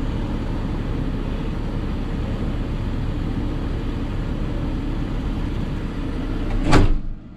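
Hidromek 220 LC excavator's diesel engine running steadily, heard from the cab, with wind noise on the microphone. Near the end a short, sharp swish is the loudest moment, and right after it the sound drops away abruptly.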